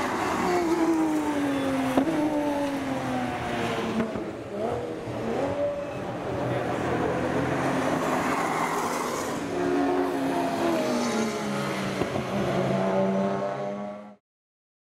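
Racing car engines running hard on track, their pitch falling over the first few seconds, shifting up and down in the middle and climbing again later, before the sound cuts off abruptly near the end.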